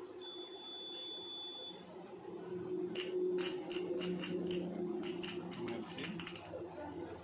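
A short steady high-pitched beep, then about three and a half seconds of sharp, irregular crackling over a low hum: the stick-welding arc of a 200 A inverter welder being struck at 20 A to test its output after repair.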